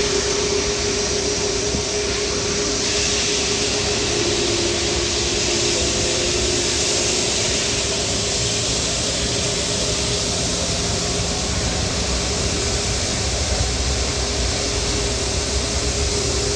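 Jet airliner engines running, a steady rushing noise with a held low whine.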